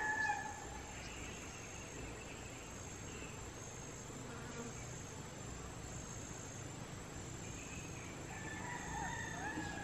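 Steady, high-pitched drone of insects in tropical farmland, with a rooster's crow tailing off in the first second and a few faint calls near the end.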